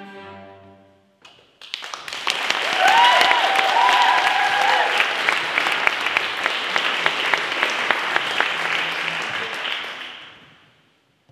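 The last notes of a small string ensemble die away, then an audience applauds. The clapping starts about two seconds in, holds, and fades out near the end.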